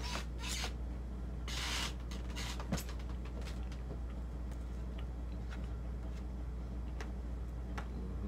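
Eating pizza: a few short rustles and clicks as a slice is pulled apart on a paper plate and chewed, over a steady low hum.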